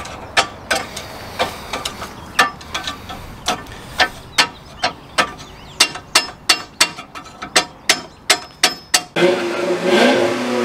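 Hammer blows on the steel steering knuckle and ball joint of a front suspension, sharp metallic strikes coming about two to three a second, more than twenty in all. About nine seconds in they stop, and an intro sound of an engine revving takes over.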